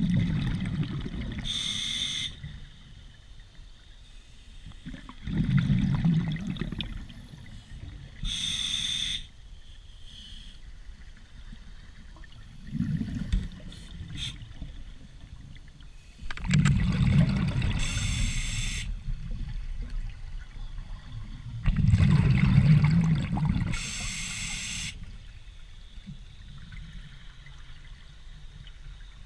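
Scuba diver breathing through an open-circuit regulator underwater: about five breaths a few seconds apart, each a short hissing inhale and a rumbling burst of exhaled bubbles, muffled through the camera housing.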